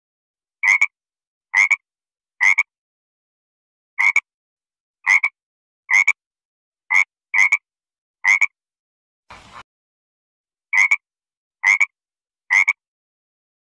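A frog croaking: about a dozen short, clipped croaks, roughly one a second with a couple of longer pauses. A faint, brief noise comes about two-thirds of the way through.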